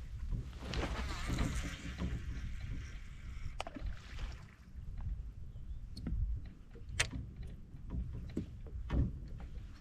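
Water splashing and sloshing beside a fishing kayak for about four seconds, followed by scattered sharp clicks and knocks.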